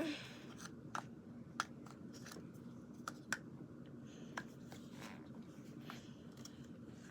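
Faint scattered clicks and taps of small plastic slime tools and containers being handled, over a low steady hum.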